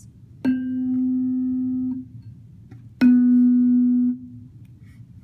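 Two tuning forks on wooden resonance boxes, struck one after the other with a mallet. Each rings a clear, steady tone for about a second and a half and is then stopped. The two tones differ slightly in pitch, because one fork is detuned by a clip fitted to it.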